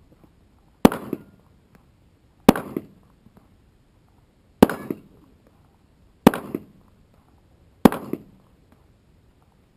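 Pistol fired at steel targets, five single shots spaced about one and a half to two seconds apart, each followed about a third of a second later by a fainter second report.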